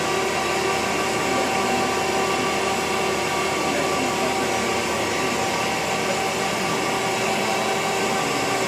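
1995 Femco WBMC 100R2 horizontal boring mill running, a steady whir and hum with several steady tones, as its rotary table turns on the B axis.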